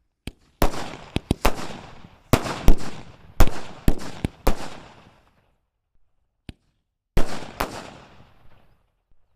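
Aerial sky-shot fireworks going off: a quick run of about a dozen sharp bangs, each trailing off in a fading echo. After a pause and a small click, two more bangs come near the end.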